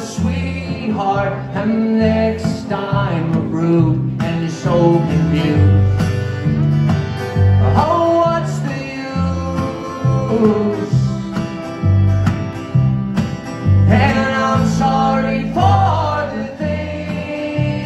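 Live bluegrass-style band: a fiddle plays a solo break full of slides over strummed acoustic guitar and plucked upright bass.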